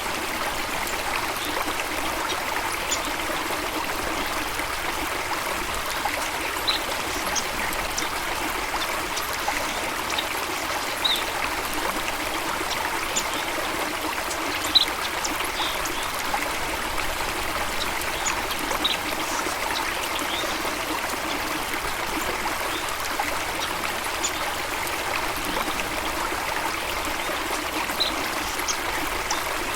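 Running water of a stream or small waterfall, a steady even rush and trickle, with scattered brief high-pitched ticks over it.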